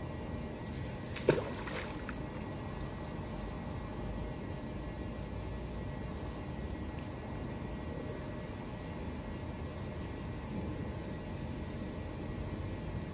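Steady outdoor background noise with faint bird chirps, and one short sharp sound about a second in.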